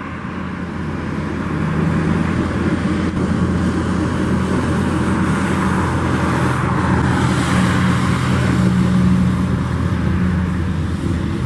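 Motor vehicle traffic: a steady engine hum with road noise that slowly grows louder to a peak about three-quarters of the way through, then eases.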